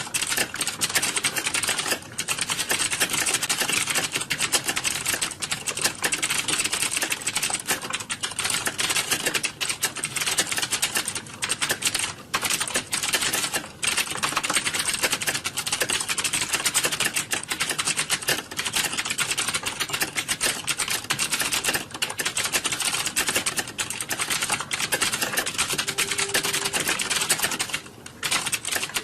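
Fast, continuous typing on a computer keyboard: a dense stream of key clicks, broken by a few short pauses, about two seconds in, around the middle and near the end.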